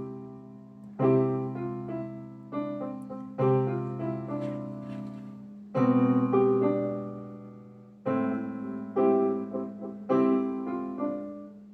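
Piano played by a beginner: slow power chords (root and fifth), each struck and left to ring and fade before the next, roughly one to two seconds apart. A steady low hum runs underneath.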